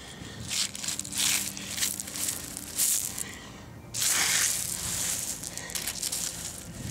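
Beach pebbles and gritty sand crunching and scraping in irregular bursts, with a longer, louder stretch from about four seconds in.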